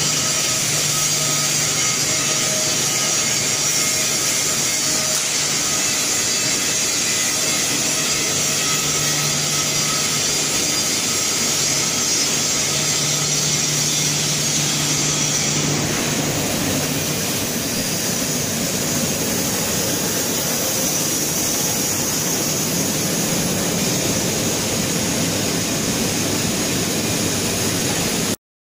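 Continuous mercerising range running: a steady machine hum and hiss from its rollers and drive motors, with a constant low hum and a high hiss. The sound changes about halfway through and cuts off suddenly near the end.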